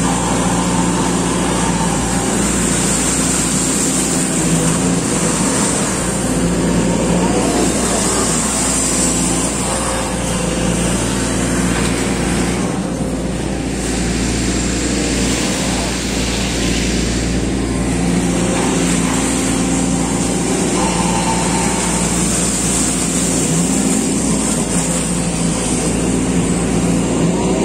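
SANY SY215C excavator's diesel engine running steadily under load while the boom and bucket dig a trench in wet mud, heard from the operator's cab.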